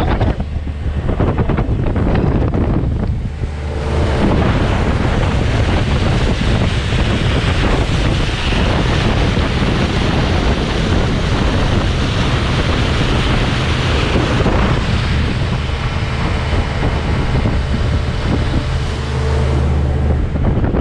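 Small outboard-powered boat under way at speed: the outboard motor's steady drone under heavy wind buffeting on the microphone and water rushing past the hull, the rush getting louder about four seconds in.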